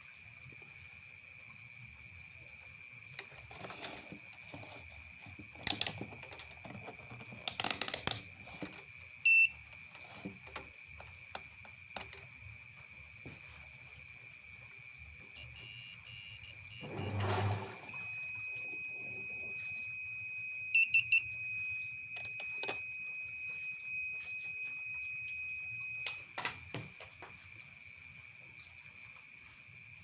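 Analog multimeter's continuity buzzer sounding a steady high beep for about eight seconds, from about halfway through, while test probes are held on the door switch contacts of a washing machine with an E3 door-switch error. Earlier come sharp clicks and knocks from handling the probes and wiring, the loudest about eight to nine seconds in. Crickets chirp steadily throughout.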